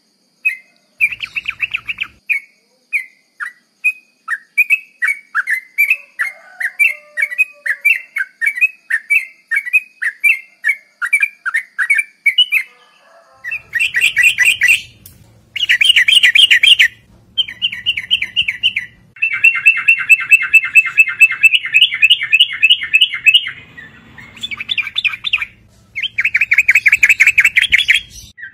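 Yellow-vented bulbul calling: a run of short clear chirps, about two a second, then from about halfway loud rapid bubbling song phrases in bursts of one to three seconds.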